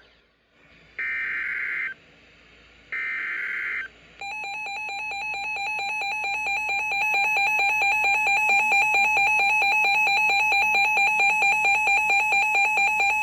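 Emergency Alert System broadcast: two one-second bursts of the digital SAME header data, a second apart. From about four seconds in comes the steady two-tone EAS attention signal, which runs for about nine seconds and cuts off near the end. Together they announce an incoming severe thunderstorm warning.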